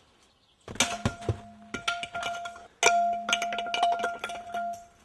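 Aluminum baseball bat smashing plastic and metal: two heavy hits about two seconds apart, each followed by a steady metallic ringing and a rapid clatter of small knocks that fades out near the end.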